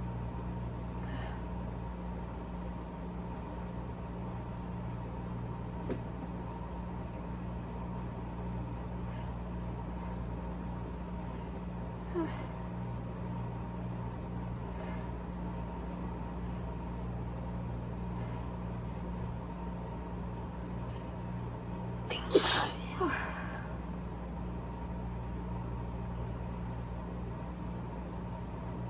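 A single loud allergy sneeze about three-quarters of the way through, in two quick parts, over a steady low background hum.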